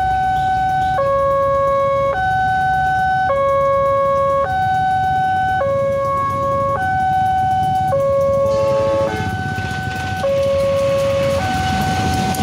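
Railway level crossing's electronic warning alarm sounding, switching back and forth between a higher and a lower tone about once a second. Near the end the noise of a passing train rises beneath it.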